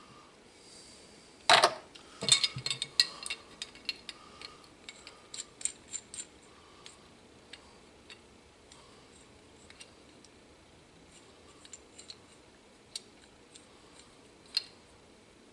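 Small metal hand tools clicking and clinking during brake line tubing work. A loud clatter comes about a second and a half in, then a quick run of ticks, then only the odd sharp tick.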